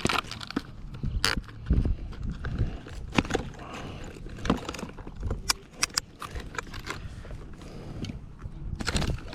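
Irregular knocks and clicks of fishing gear being handled aboard a kayak, over a low rumble of wind on the microphone.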